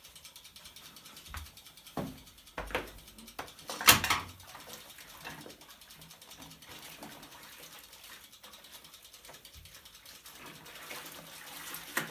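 Volga-8R washing machine in its wash cycle: a series of sharp clicks and knocks, the loudest about four seconds in, then water sloshing in the tub over a faint steady hum.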